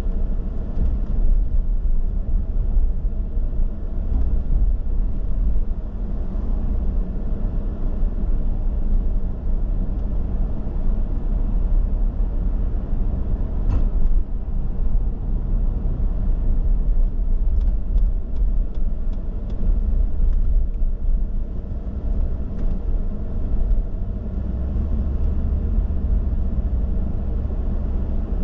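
Car driving at city speed, a steady low engine and road rumble, with a few faint ticks about two-thirds of the way through.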